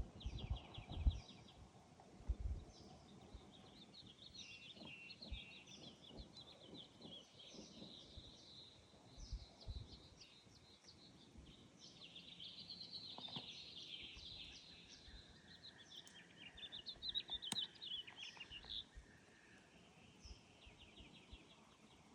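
Several small desert birds singing, with fast chattering trills and chirps going on and off throughout, busiest past the middle. A few low thumps near the start.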